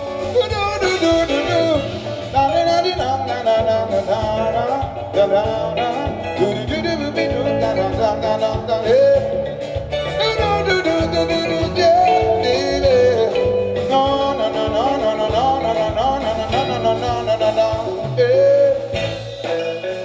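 A live band playing: a gliding melody line, sung or played, over guitar, bass and a steady drum beat.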